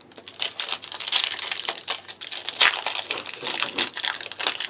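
Foil trading-card booster pack wrapper crinkling and crackling in the hands as it is gripped and torn open, a dense, irregular run of crackles.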